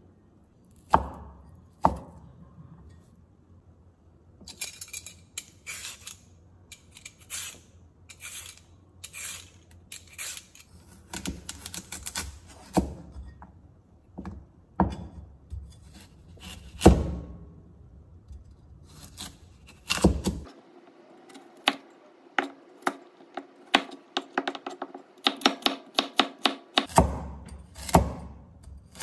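Cleaver chopping on a thick wooden chopping board: separate knocks of the blade hitting the board and cuts slicing through the food, then a fast run of chops near the end as carrot is diced.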